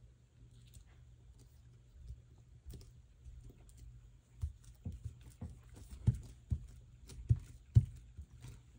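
Hands working paper on a craft table: faint handling in the first half, then a run of about eight light taps and knocks in the second half.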